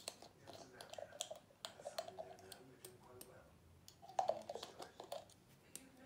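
Faint, scattered light clicks and taps from handling small alcohol-ink bottles and a dropper at a table, with brief soft rustles.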